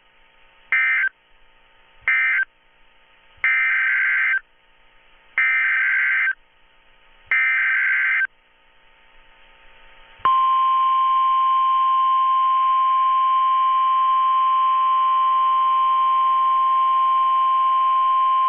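Emergency Alert System SAME data bursts, screechy digital chirps: two short ones, then three about a second long. About ten seconds in, a single steady alert tone, the 1050 Hz warning tone used by NOAA Weather Radio, starts and holds. It marks the start of a new warning message.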